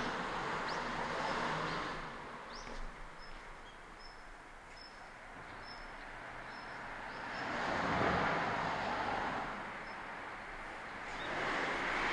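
Vehicles passing one after another, each swelling and fading: one about a second in, a louder one around eight seconds in, and another near the end. In the quieter stretch between them comes a run of short, high chirps about twice a second.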